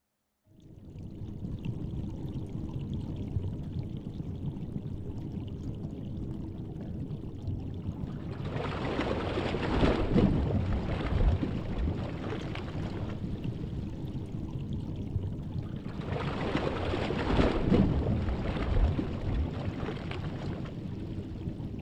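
Underwater-style sound effect of rushing, pouring water. It sets in about half a second in as a low steady wash and swells twice into louder surges, about eight and again sixteen seconds in.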